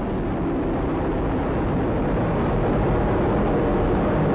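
Atlas V rocket climbing under its RD-180 first-stage engine and strap-on solid rocket boosters: a steady, rumbling rocket roar that grows slightly louder.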